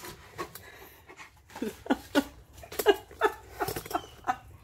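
Alaskan Malamute giving several short whines, each falling quickly in pitch, with small clicks and knocks between them.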